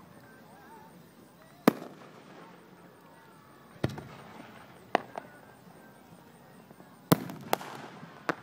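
Aerial fireworks shells bursting overhead: about six sharp bangs at uneven intervals, the last few coming closer together with a crackling hiss between them near the end.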